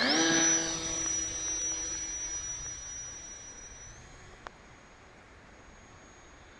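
Brushless electric motor and propeller of a small foam RC plane whining at high throttle, the pitch rising just before launch and then holding steady while the sound fades away over about four seconds as the plane flies off.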